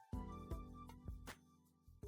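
Soft background music: plucked notes over sustained tones at a low level.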